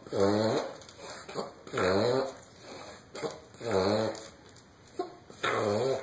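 Small dog coughing and struggling for breath: four drawn-out, pitched gasps about two seconds apart, each rising and falling in pitch, with a short sharp catch between them.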